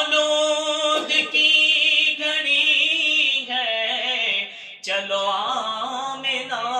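A solo male voice singing an Urdu devotional naat for the Prophet's birthday. He holds long, wavering, ornamented notes, with a brief dip for breath about two-thirds of the way through.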